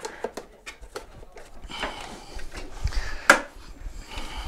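Clicks, rustling and clatter of a mobility scooter's plastic body shroud and parts being handled, with one sharp knock about three seconds in.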